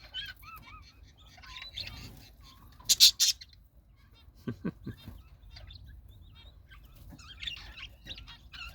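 Button quail chicks peeping with soft, high little chirps, scattered over the whole stretch, as they keep in contact with their parents. A short, loud burst of noise cuts in about three seconds in.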